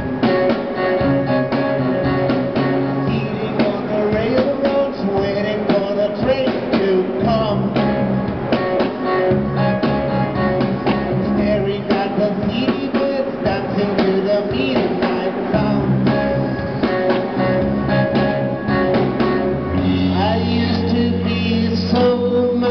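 Live rock band playing amplified electric guitars, keyboard and drum kit, with a male singer. Near the end the band holds long sustained low chords.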